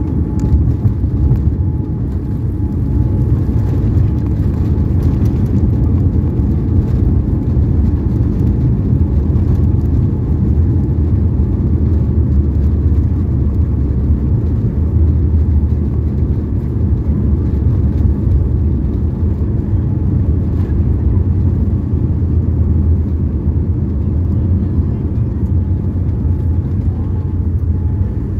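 Airliner cabin noise during the landing rollout of a Boeing 787-9: a loud, steady low rumble of wheels on the runway, airflow over the raised spoilers and the engines.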